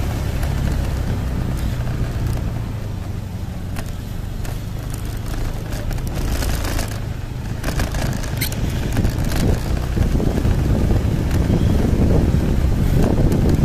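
Motor scooter engine running with a low hum during a ride, with a few light clicks about halfway through. Wind buffeting on the microphone grows louder over the last few seconds.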